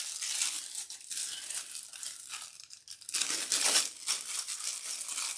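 Small clear plastic bag crinkling and rustling as it is handled and pulled open by hand, in uneven crackly bursts that are loudest about three seconds in.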